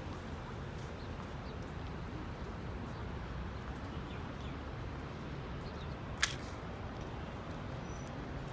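Outdoor car-park ambience: a steady low rumble of traffic and idling vehicles, with a few faint high chirps and one sharp click about six seconds in.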